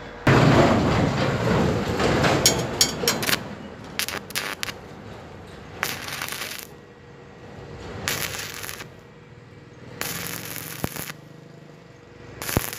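Stick welding arc on thin steel square tube and flat bar, crackling and sputtering. A first run of about three seconds is the loudest, then the arc is struck and broken again and again in short bursts of under a second each, laying a string of short welds.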